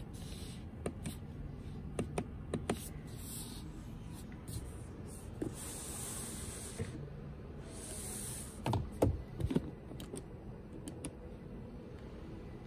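Built-in rear door sunshade of a 2021 Hyundai Santa Fe being handled: the mesh blind slides with a hissing rustle several times, with sharp clicks and, a little after the middle, a few louder thuds as it is hooked and let back.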